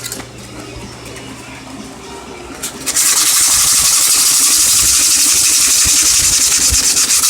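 A small power tool runs loudly for about four seconds, starting about three seconds in and cutting off suddenly: a steady high hiss with a fast flutter.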